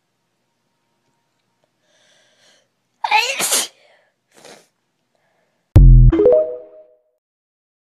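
A girl sneezing twice. A short sharp sneeze comes about three seconds in. A second, louder sneeze near six seconds overloads the recording with a low thump and trails off in a brief voiced tone.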